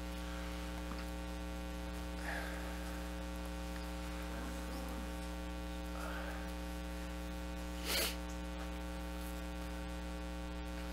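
Steady electrical mains hum in the recording, with a single sharp click about eight seconds in.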